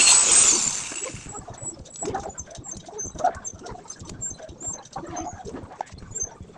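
Angle grinder cutting tile, its high whine falling as it winds down about a second in, followed by light scraping and clicking.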